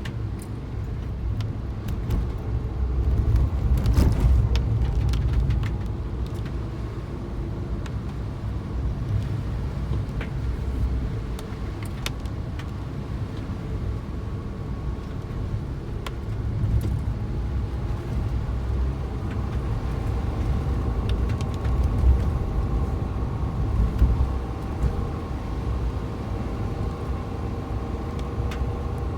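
Suzuki Jimny on the move: a steady low rumble of engine and road noise, with a few light clicks and rattles.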